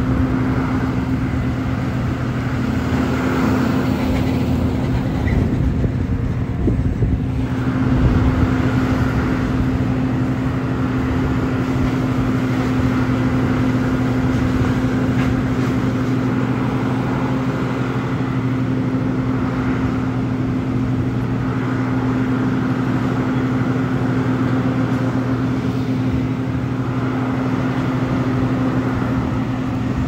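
A heavy engine running steadily at one constant speed, a continuous low hum with no change in pitch.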